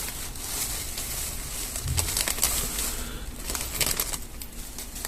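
Rustling and crinkling of an object being picked up and handled, with a soft low thump about two seconds in.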